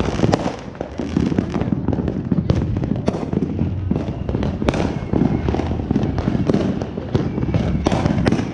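Aerial fireworks going off all around: sharp bangs and pops, one or two a second, over a steady rumbling background of more fireworks.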